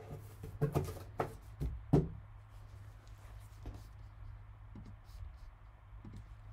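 A few sharp knocks and taps of an empty cardboard trading-card box being handled and set down on a table, within the first two seconds; after that only a few faint ticks.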